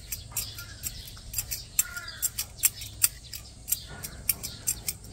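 Vegetable peeler shaving the skin off a peach: a run of crisp, quick scraping clicks, a few each second, at an irregular pace.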